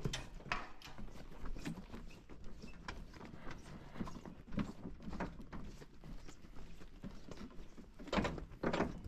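Irregular knocks and clicks, a few each second, with two louder knocks near the end.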